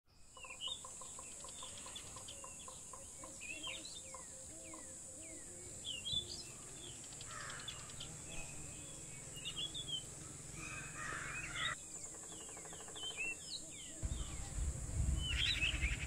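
Several forest birds chirping and calling with short rising and falling notes, over a steady high-pitched drone; a run of evenly spaced ticks, about three a second, sounds in the first few seconds. A low rumble comes in about two seconds before the end.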